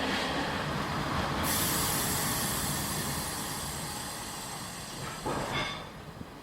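Running noise of an old Taiwan Railways non-air-conditioned passenger coach in motion. A high hiss with a squealing edge starts about a second and a half in and cuts off near the end, and the overall noise then dies down.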